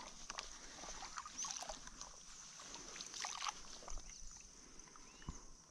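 Faint sloshing and light splashes of shallow water, made by someone wading, with scattered small clicks.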